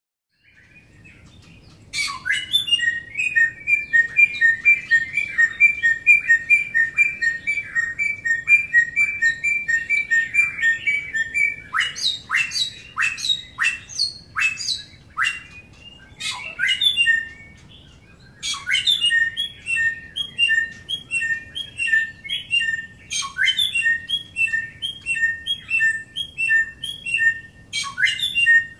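Bare-throated whistler (samyong) singing: long runs of rapidly repeated whistled notes, broken about halfway through by a handful of sharp, down-slurred whip-like notes.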